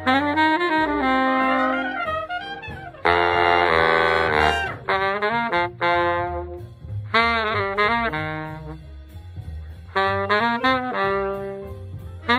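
Saxophone playing a melody in short phrases, sliding and bending between notes, with brief pauses about two and a half seconds in and again around nine seconds in.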